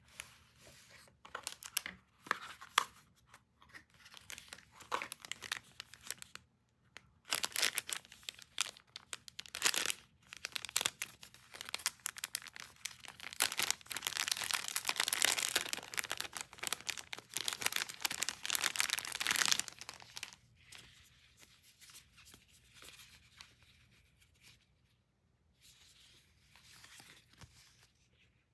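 Packaging being torn open and crinkled by hand, a dense run of tearing and crackling rustles that is busiest in the middle and thins out to occasional light rustles near the end.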